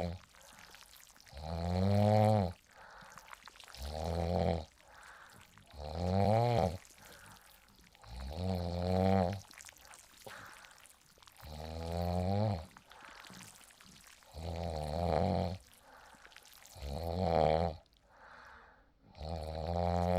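A sleeping person snoring in a steady rhythm: a loud, pitched snore about every two and a half seconds, each lasting about a second, with quiet breathing between.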